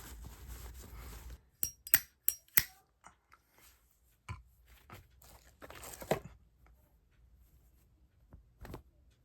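Paper towel rubbing over a Zippo lighter's metal case. Then comes a quick cluster of four sharp metallic clicks and clinks about two seconds in, followed by scattered softer clicks and another short rub as the lighter is handled.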